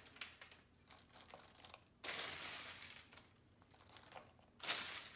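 Handfuls of crispy oven-roasted chickpeas scraped off parchment paper and dropped into a bowl of salad greens, giving a dry crunching rustle. It comes in two goes: one starting suddenly about two seconds in and fading over a second or so, and another near the end.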